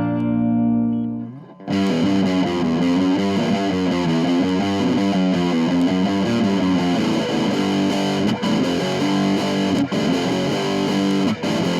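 1970s Univox Hi-Flier Phase 3 electric guitar played with distortion: a chord rings and fades away over the first second and a half, then a riff of distorted chords and notes plays on steadily.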